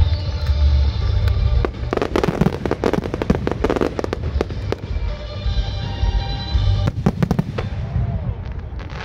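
Fireworks display: volleys of rapid bangs and crackling pops from shells and ground effects, loudest in two dense bursts, over music with a heavy bass played for the show.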